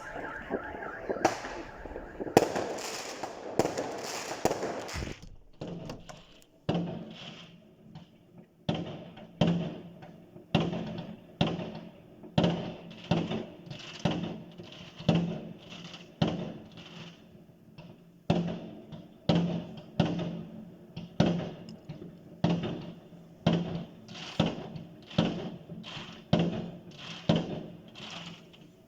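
Firecrackers crackling rapidly for about five seconds, then a car alarm sounding in evenly spaced pulses, about one a second, until near the end.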